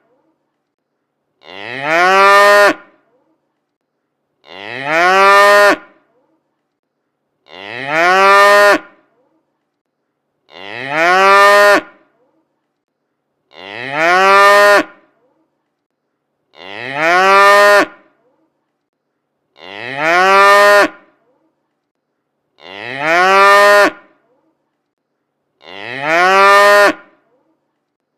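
A cow mooing: one identical drawn-out moo about every three seconds, each lasting about a second and a half with the pitch sinking at the end, and silence between the calls.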